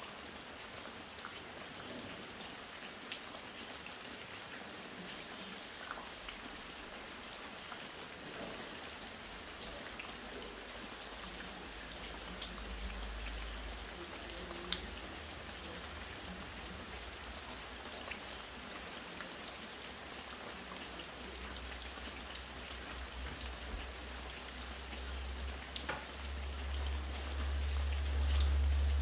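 Light rain falling steadily, with scattered drops ticking as they drip from a roof. A deep low rumble swells near the end.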